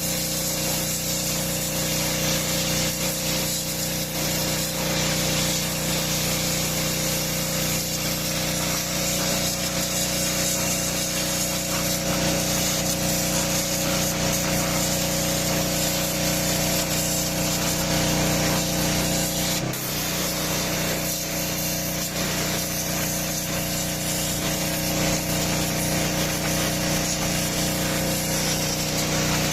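INGCO GHPW2003 gasoline pressure washer running steadily: the steady note of its 6 HP petrol engine under the hiss of the high-pressure water spray.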